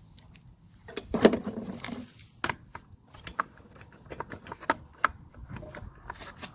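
Small handling noises: a string of clicks, clinks and knocks from tools and parts being handled while servicing a Honda lawn mower's spark plug, with one louder clunk about a second in.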